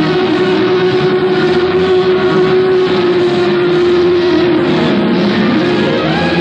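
Loud live rock band holding a sustained chord, with crowd noise under it; about six seconds in, a note glides upward as the music moves on.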